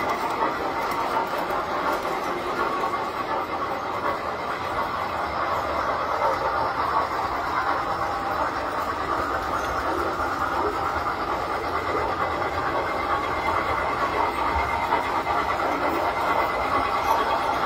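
Several tinplate model trains running on metal track: a steady whir and clatter of their motors and wheels.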